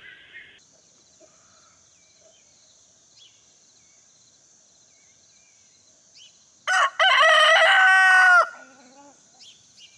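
A barred rooster crows once, some seven seconds in: a short opening note, then a long held call of about a second and a half that drops off at the end.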